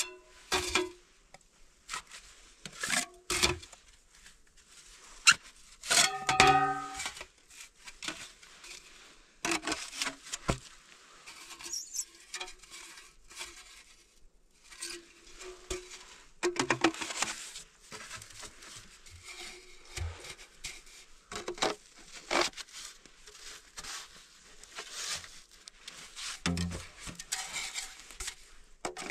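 Irregular knocks, clicks and rustling, as of objects being handled, with a few short pitched squeaks.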